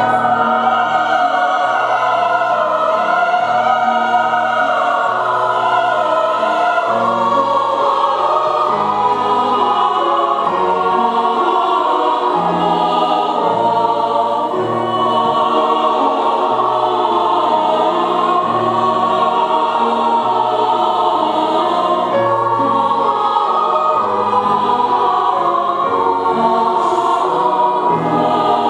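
Mixed choir singing a slow classical choral piece with grand piano accompaniment, starting at once and carrying on at a steady, full level.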